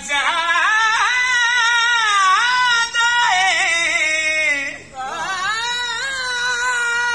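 Music: a solo voice singing long held notes that bend and waver in pitch, with a short break about five seconds in.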